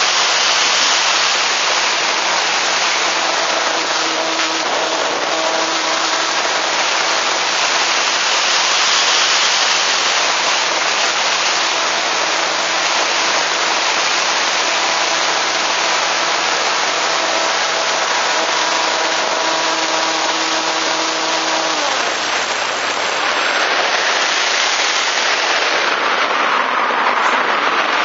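Wind rushing over the onboard camera of an EasyGlider RC motor glider in flight, with the steady whine of its electric motor and propeller underneath. About 22 seconds in the motor is cut: its whine falls in pitch and dies away, leaving only the wind rush, which swells and fades as the glider turns.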